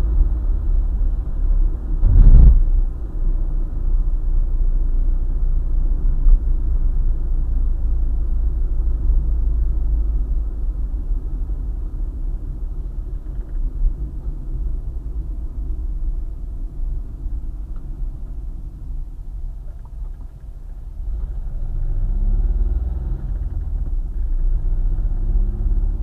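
Car driving on a highway: a steady low rumble of road and engine. There is one brief loud thump about two seconds in, and the rumble eases and then swells again near the end.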